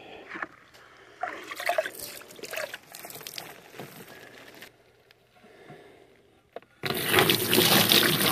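Water sloshing and trickling in a filter housing, with knocks from handling it. About seven seconds in, a strong, steady rush of running water starts suddenly.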